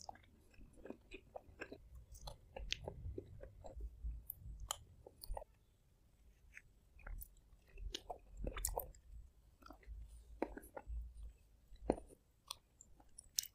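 Close-miked eating of vanilla ice cream and brownie: wet lip and tongue smacks and chewing, with irregular short clicks throughout, some of them a metal spoon tapping and scraping on a ceramic plate.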